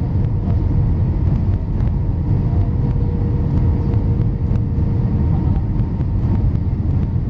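Steady cabin noise of an Airbus A319 on approach, heard from a window seat over the wing: a low rumble of engines and airflow over the extended flaps, with a faint steady hum above it.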